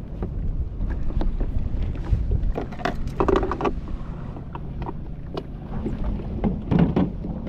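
Wind rumbling on the microphone on open water, with scattered light knocks and clicks. A louder cluster of them comes about three seconds in, and another near the end.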